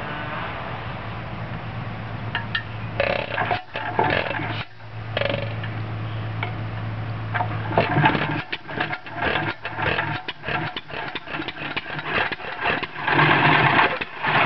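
John Deere Model E single-cylinder hit-and-miss engine running and working a pump jack. A steady low hum at first, then from about eight seconds a quick, irregular run of knocks and clatter.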